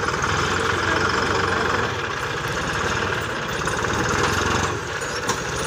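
Diesel engine of a green John Deere tractor running at low revs with a steady, rapid clatter as it slowly hauls two trailers loaded with sugarcane. The deepest part of the rumble drops away about four and a half seconds in.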